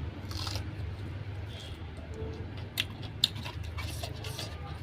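Chewing and small mouth clicks of someone eating rice and curry, over a steady low hum.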